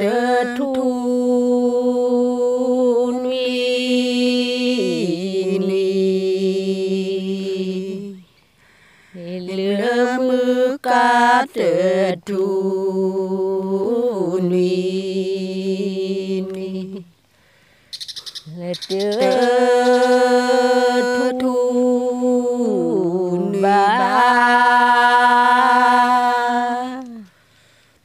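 A Karen woman singing a traditional hta song unaccompanied, in a chant-like voice. Three long phrases of held notes, each stepping down to a lower pitch before a short breath break.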